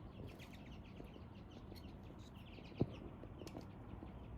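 Faint chirping of small birds, many quick short chirps, with one sharp click a little under three seconds in.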